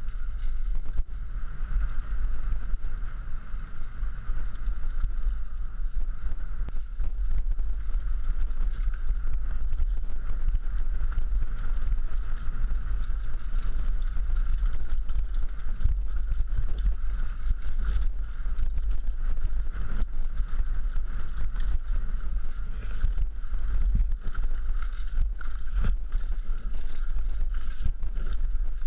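Wind buffeting a helmet-mounted camera's microphone as a downhill mountain bike rides a dirt trail, with the bike's rattle and many small knocks from the rough ground.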